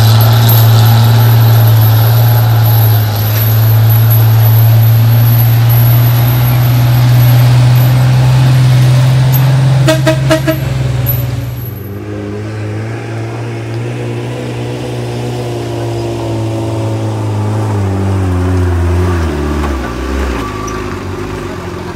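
Heavy diesel truck engine running loud and steady, then dropping in level about twelve seconds in, its pitch drifting up and then falling. A couple of short horn toots come about ten seconds in.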